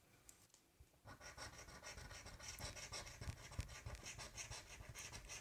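Coin scratching the latex coating off a scratch-off lottery ticket, a faint rasp of quick repeated strokes that starts about a second in.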